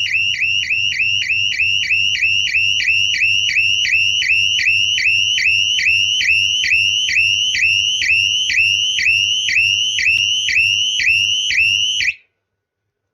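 Electronic siren of a power failure and resumption alarm unit: a fast, even train of rising high-pitched sweeps, a little over two a second, that cuts off suddenly near the end.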